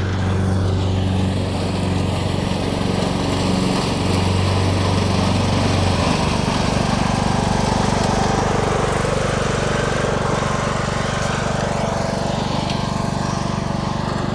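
An engine running steadily, with a low hum whose pitch drops slightly about six seconds in.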